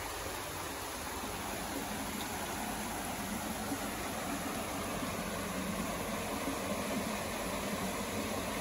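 Distant road traffic: a steady, even hiss with a faint low hum.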